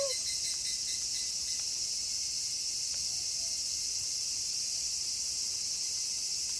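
Steady high-pitched insect chorus, a constant shrill chirring with no breaks. The tail of a howl slides down and ends right at the start.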